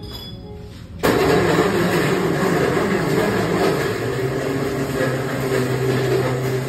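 A loud machine running steadily with a low hum, starting abruptly about a second in.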